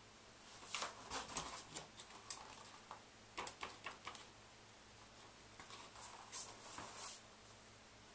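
Stiff paper rustling and crackling as a large poster sheet is handled, in quick irregular crinkles and taps: one run starting about half a second in, another around six seconds in.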